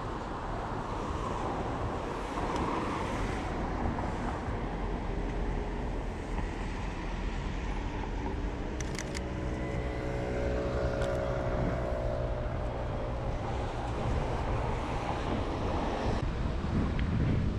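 Night street traffic on wet roads: a steady low rumble with wind on the microphone. In the middle a vehicle passes, its engine note sinking slightly as it goes by. Two sharp camera shutter clicks sound a couple of seconds apart as the camera is raised to shoot.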